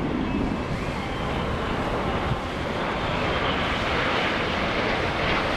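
Steady jet roar from a formation of five CT-114 Tutor trainers passing overhead, mixed with wind rumbling on the microphone. The roar grows a little louder and brighter in the second half.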